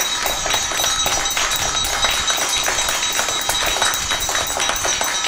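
Many hands clapping together in a dense, steady round of applause.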